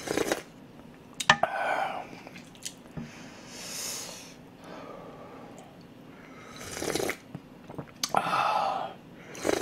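A person slurping and swallowing pork soup broth from a wooden spoon, a mouthful at a time, with a few sharp clicks of the spoon.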